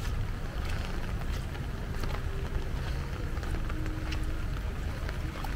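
Heavy typhoon rain falling steadily, with a constant low rumble underneath and scattered sharp ticks of drops striking close by.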